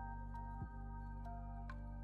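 Soft, calm background music: sustained low chords, changing once about half a second in, with short ringing bell-like notes played over them.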